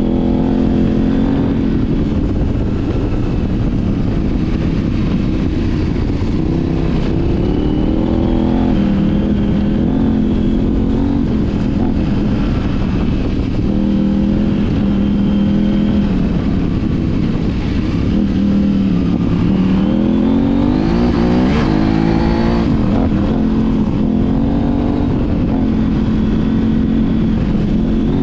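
KTM 790 Adventure R's parallel-twin engine through an Arrow titanium slip-on exhaust, pulling and easing off over and over, its pitch rising and falling, with a sharp climb in revs about twenty seconds in. Wind and tyre rumble on dirt run underneath.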